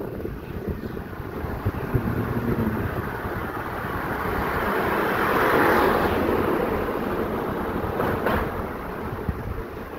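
A car passing, its engine and tyre noise swelling to a peak about halfway through and then fading, over steady wind rumble on the microphone of a moving bicycle.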